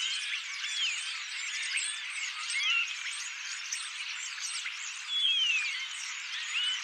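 A large flock of small birds calling together: a dense chatter of chirps and short whistles, with a clearer falling whistle standing out a little past five seconds in.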